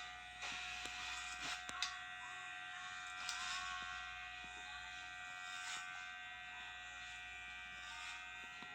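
Electric hair clippers buzzing steadily during a haircut, with a few faint clicks.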